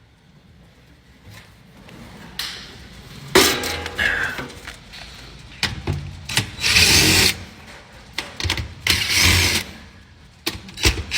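A power tool, like a drill, running in several short bursts of about a second each.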